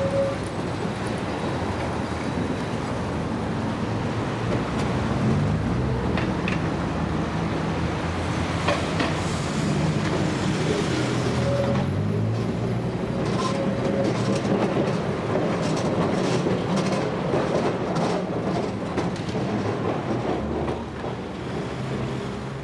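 Melbourne W-class tram running along street track, its wheels clacking and knocking over the rail joints and points, most often in the second half, with passing road traffic.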